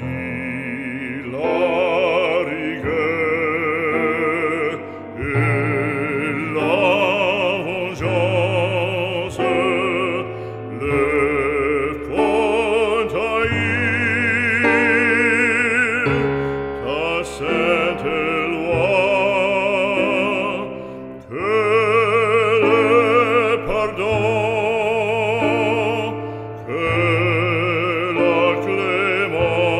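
Operatic singing with heavy vibrato over slow, sustained accompaniment, in long phrases with brief pauses between them: background music.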